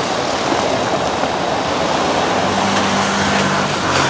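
Dense, steady noise of a large protest crowd, a mass of voices blurred together without distinct words, with a low held tone for about a second after the middle.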